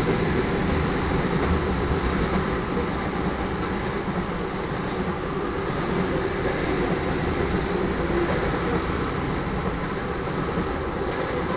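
Crude oil tank cars of a freight train rolling past: steel wheels on rail, a steady rumble and rattle.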